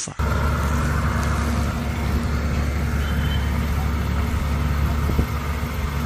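Engine of a heavy truck running steadily, a low, even engine sound with no change in pace.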